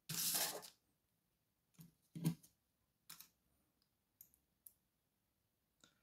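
Small metal clicks and handling noise of steel tweezers working on an Evva 3KS cylinder core as the key-control top bar is taken off. A short scrape right at the start, then about half a dozen faint, separate clicks.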